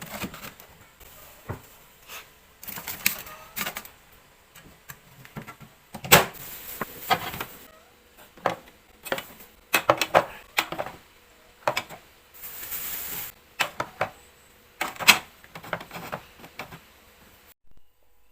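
Kitchen handling sounds: an uneven run of clicks, knocks and clatter, as of food containers and lids being handled, with a brief rustle about twelve seconds in. The sounds stop abruptly just before the end.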